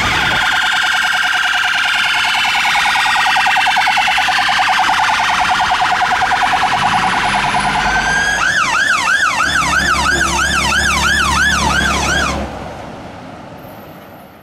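Emergency vehicle sirens. A very fast warbling tone runs for about eight seconds, then changes to a yelp sweeping up and down about three to four times a second, with a low rumble underneath. The sound cuts off about twelve seconds in and fades away.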